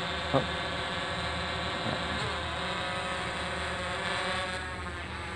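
Eachine EX3 quadcopter drone's motors and propellers buzzing overhead as it flies off at speed. The pitch dips briefly about two seconds in, and the buzz grows a little fainter near the end.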